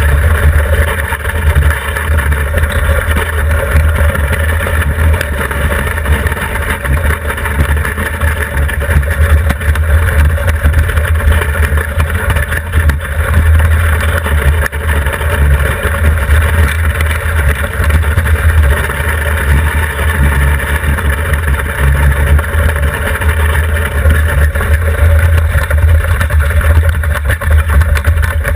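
Iceboat underway: its runners rumbling steadily over rough lake ice, carried through the hull to the bow-mounted microphone, with heavy wind buffeting on the microphone.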